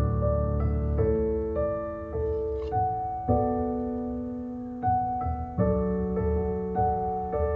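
Background piano music: a slow, gentle tune with a new note or chord struck every half second to a second or so.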